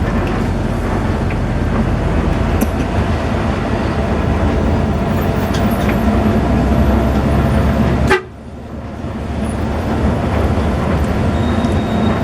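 Bus engine and road noise from a moving bus, a steady loud rumble. It drops away abruptly about eight seconds in, then builds back up over a couple of seconds.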